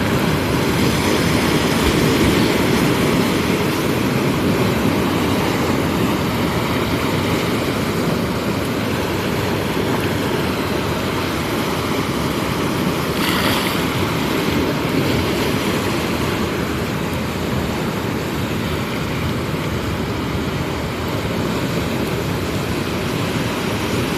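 Sea waves washing on the shore: steady surf noise, with a brief louder hiss about halfway through.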